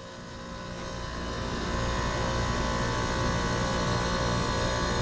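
2007 Heil 5-ton heat pump outdoor unit with a scroll compressor running steadily, a humming drone with several fixed tones over a rushing noise. It rises over the first two seconds and then holds level.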